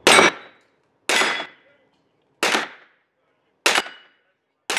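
Five handgun shots about a second and a quarter apart, each echoing around an indoor range, with a brief ring in each tail from steel plate targets being hit.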